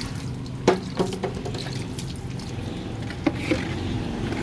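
Water being poured onto a motorcycle engine to cool it, over a steady low hum, with a few sharp knocks, the loudest about a second in and again near the end.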